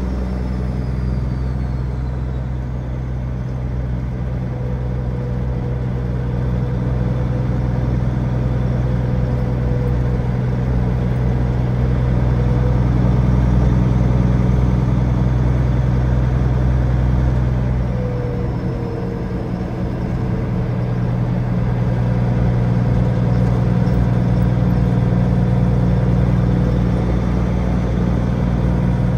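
Diesel engine of a Peterbilt 379 semi truck running steadily under way, hauling a loaded flatbed, with a low, even engine drone. About two-thirds of the way through, the engine note briefly drops and then settles back to a steady pull.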